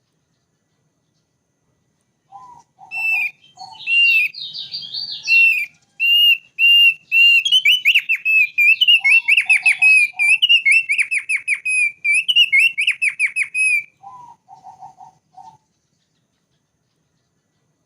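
Thick-billed white-eye singing. After a short run of low notes comes a long, rapid song of repeated whistled notes at a fairly steady pitch, laced with high, quick trills. It ends with another short run of low notes.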